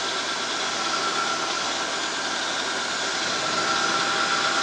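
Milling machine's end mill cutting a groove into a metal workpiece: a steady machining noise with a high whine that grows a little stronger toward the end as the cut goes on.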